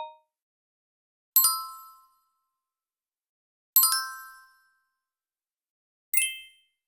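Three short electronic notification chimes, about two and a half seconds apart. Each is a single bright ding that starts suddenly and dies away within about half a second. The third is higher-pitched and shorter than the first two.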